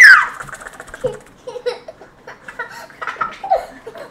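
A child laughing: a loud falling squeal at the start, then quick giggles, about three a second.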